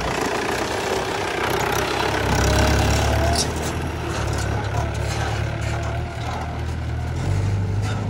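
Heavy diesel engine running steadily, swelling a little about two seconds in and again near the end.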